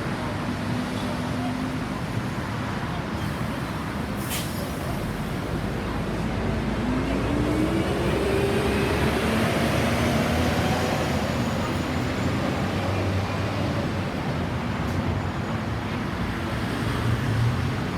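Road traffic running steadily, swelling in the middle as vehicles pass close by. A single tone rises slowly about a third of the way in.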